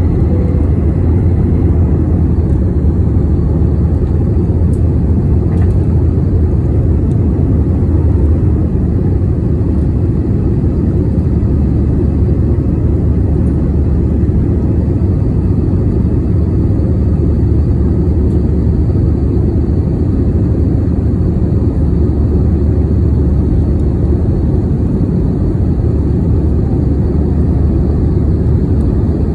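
Jet airliner's engines and rushing air heard inside the cabin during the takeoff climb: a steady, loud low rumble.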